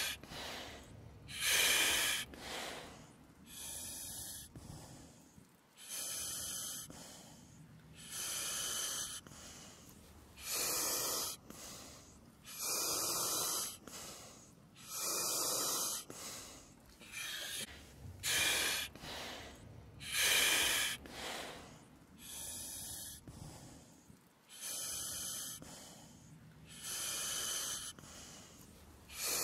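A person breathing heavily close to the microphone in a confined underground space, with a rushing breath about every two seconds.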